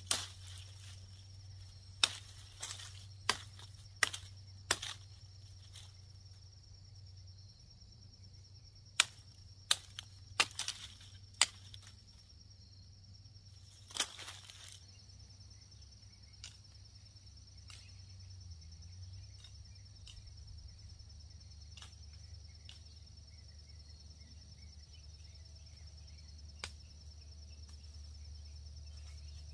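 Large knife blade chopping into a green black haw viburnum sapling: sharp strikes, about five in the first five seconds, four more between about nine and twelve seconds in, and one near fourteen seconds. Insects trill steadily behind.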